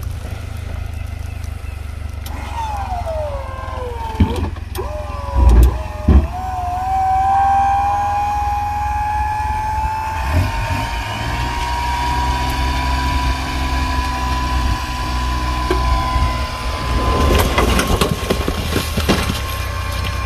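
Daihatsu Hijet mini truck running while its dump bed tips up under a load of cherry logs: a whine that dips, then climbs slowly and holds steady as the bed rises, over the engine's low hum. A few heavy thumps come a few seconds in, and near the end there is a clatter of logs sliding off the bed and tumbling to the ground.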